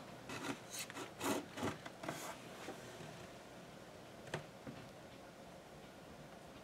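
Hands handling a smartphone: a few short rubbing sounds in the first couple of seconds and a single light click about four seconds in, then quiet room tone.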